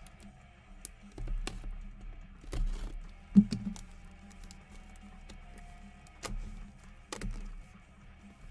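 Sealed trading card box handled on a tabletop: scattered light clicks and taps, with a heavier thump about three and a half seconds in as it is set down or knocked against the table.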